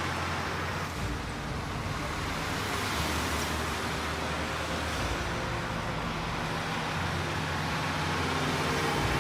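Heavy logging truck running steadily, with a low engine note under the rumble of tyre and road noise.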